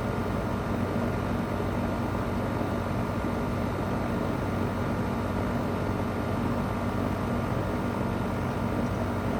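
2001 Goodman CPLE30 2.5-ton heat pump running steadily in cooling mode: its Copeland reciprocating compressor hums under the steady whoosh of the condenser fan.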